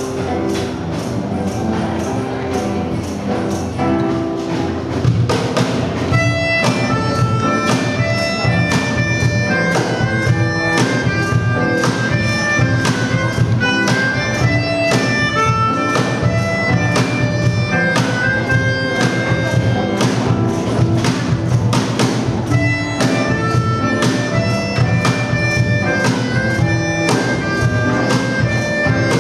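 Live instrumental trio of melodica, cajon and acoustic guitar: the cajon keeps a steady beat under guitar chords, and the reedy melodica melody comes in about six seconds in and carries the tune.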